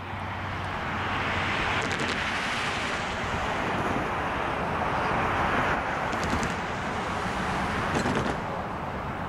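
Road traffic passing: a steady rush of tyre noise that swells and fades a couple of times.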